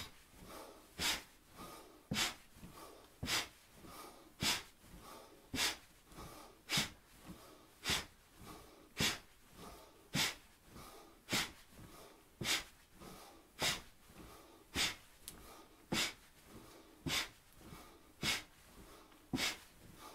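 A person breathing hard and rhythmically through the nose, with a short sharp breath about once a second, in time with high alternating knee lifts. Fainter in-breaths fall between the strong breaths.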